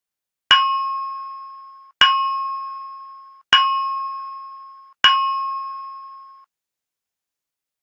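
Alert chime of a fire alarm voice evacuation system: four identical bell-like tones about a second and a half apart, each struck sharply and fading away. It is the attention signal that introduces the recorded evacuation announcement.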